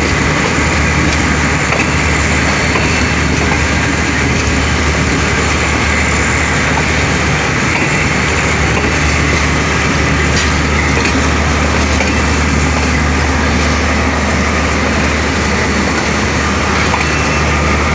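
Pakistan Railways passenger train rolling slowly over station tracks: a steady rumble of the coaches on the rails with a constant low hum underneath.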